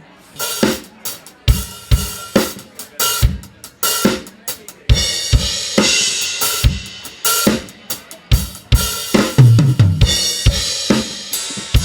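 Full drum kit played in a steady groove, with kick, snare, toms, hi-hat and cymbals, as the drummer plays all the drums together for a sound check.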